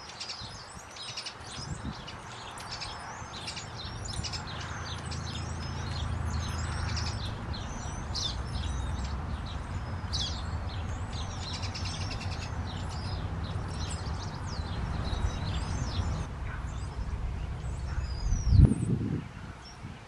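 Small songbirds chirping and twittering over and over, with a steady low rumble underneath. A loud low thump comes near the end.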